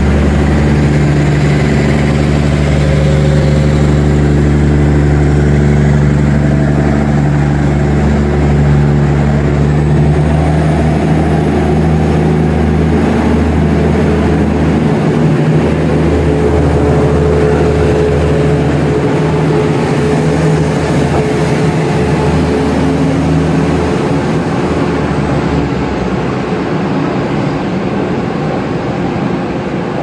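Taiwan Railway DR3000 diesel multiple unit's diesel engines running hard under full power as the train pulls out close by, a thick, deep, steady engine drone. The drone fades near the end as the cars move away.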